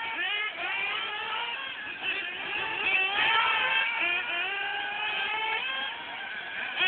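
Several radio-controlled model race cars' motors whining together, each rising and falling in pitch as the cars speed up and slow down.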